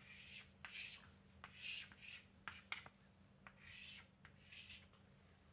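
Chalk writing on a chalkboard: a faint run of short scratching strokes, about eight of them, with a few sharp taps of the chalk against the board between them.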